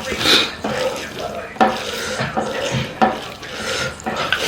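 Close-miked mukbang eating sounds: wet chewing and squelching of rice and chicken curry, with sharp smacking clicks about every second and a half.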